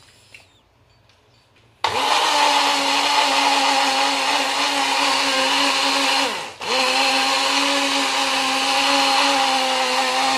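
Personal bullet blender running on a jar of thick pesto, a steady motor whine that starts about two seconds in. About six and a half seconds in it stops briefly, its pitch falling as it spins down, then starts again and runs until it cuts off at the end.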